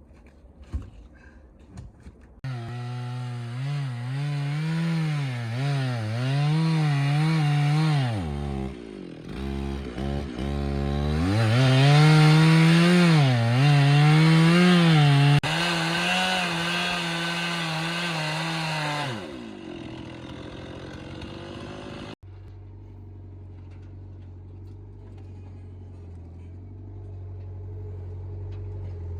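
Chainsaw starting up and cutting wood, its pitch sagging and rising again as the chain loads in the cut, with one deep bog partway through. It eases off and stops about three-quarters of the way in, leaving a low, steady engine rumble.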